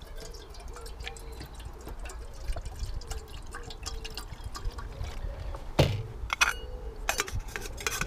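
Water poured from a plastic bottle into a small aluminium kettle as it fills. Later come a few sharp knocks and clatters, the loudest about six seconds in, as the bottle and kettle are handled and set down.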